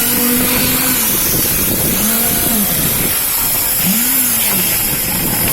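Concrete pump running steadily with a hiss. A tone in its sound rises and falls in pitch about every two seconds.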